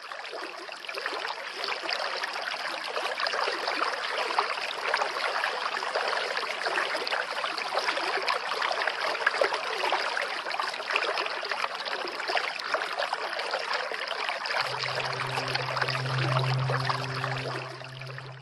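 Small waterfall splashing steadily into a pond. A low steady hum joins about fifteen seconds in.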